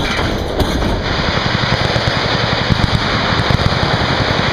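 Automatic gunfire from several machine guns firing at once, a dense continuous rattle of rapid shots.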